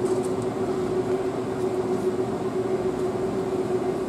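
Plastic hamster wheel spinning steadily as a hamster runs in it: a continuous whirring rumble over a constant low hum.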